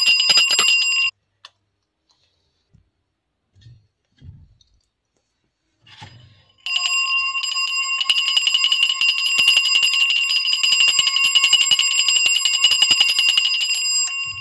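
Small puja hand bell rung rapidly and continuously, its clapper striking many times a second. It stops about a second in, and after a few seconds broken only by a few faint low knocks it is rung again for about seven seconds, stopping shortly before the end.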